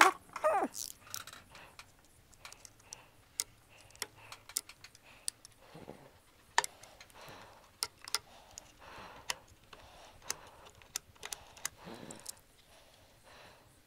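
Irregular light clicks and taps with soft scraping in between, from hand tools and wood pieces being handled on a workbench.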